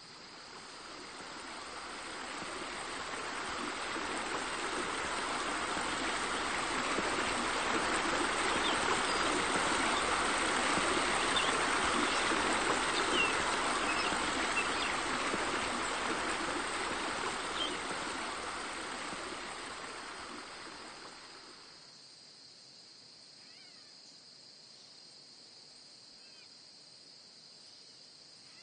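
Running water with a steady rushing sound, swelling up over the first several seconds and fading away about two-thirds of the way through, over a steady high-pitched insect drone.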